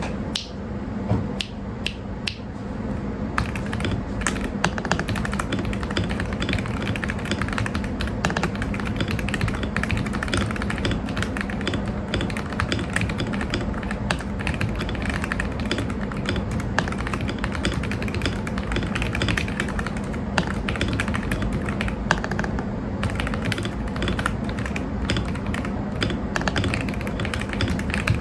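Typing sound test on a Press Play Rover84 V4 mechanical keyboard with lubed KTT Kang White linear switches, a polycarbonate plate, thick case foam and a tape mod. A few separate keystrokes come first, then about three seconds in a fast, continuous run of typing. The keystrokes are clean, high-pitched and clacky.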